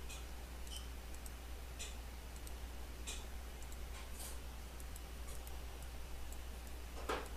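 Computer mouse clicks, short sharp ticks about once a second, over a steady low electrical hum. A brief louder noise comes near the end.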